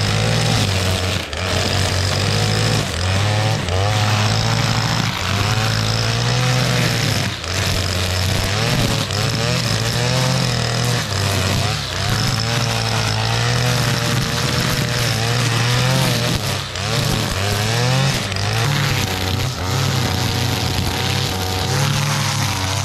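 Stihl FS460 brush cutter's two-stroke engine running at high revs, its 3 mm nylon line cutting through dead grass. The engine note dips and recovers about once a second as the line bites into the growth.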